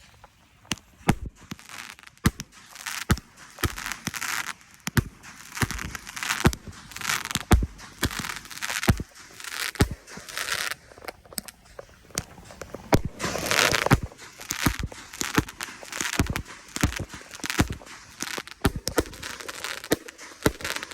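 Fireworks going off: a string of sharp bangs from bursting shells at irregular intervals, with crackling between them. A longer, louder stretch of crackle comes a little past the middle.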